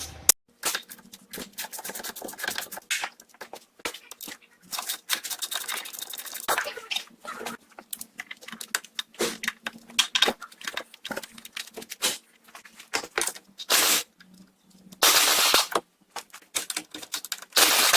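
Hand tools working on the bolts and nuts that hold a car's front shock absorber to the steering knuckle: a dense, irregular run of sharp metallic clicks and knocks as they are loosened, with a noisy burst of about a second near the end.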